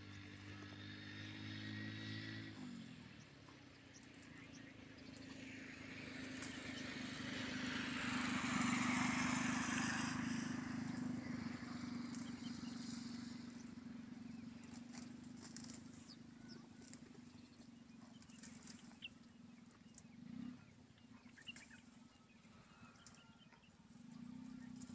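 A motor vehicle passes on a nearby road, building up to its loudest about nine seconds in and then fading, over a steady low engine hum.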